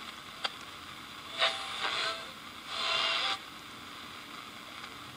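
Shortwave pocket radio's speaker giving a steady hiss of static between the broadcaster's words. There is a click about half a second in, then two short louder bursts of noise, some with a faint whistle tone.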